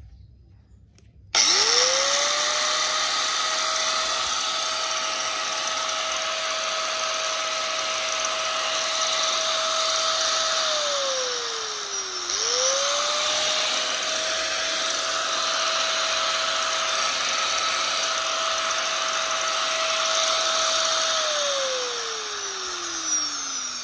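Hitachi G10SB4 angle grinder (100 V, 720 W) running free with no load: it spins up quickly to a steady high whine, runs about nine seconds, is switched off and winds down falling in pitch, is switched on again before it stops, runs another nine seconds and winds down once more near the end.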